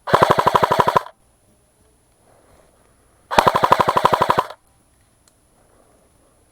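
Airsoft gun firing two short full-auto bursts, each about a second long of rapid, evenly spaced shots, the second about two seconds after the first ends.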